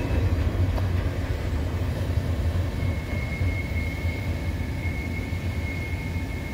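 Freight train's cars rolling past with a steady low rumble that slowly fades. A thin, steady high-pitched tone joins about three seconds in.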